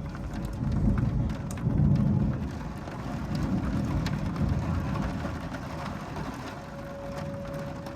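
Thunder rumbling from a passing thunderstorm, swelling loudest a second or two in and again midway before fading, over rain.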